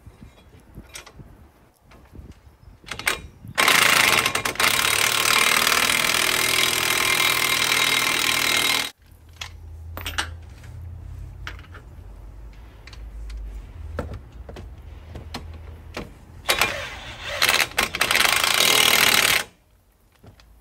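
Power tool, most likely a cordless impact wrench, hammering in the two brake caliper carrier bolts: one long run of about five seconds, then a shorter run of about three seconds.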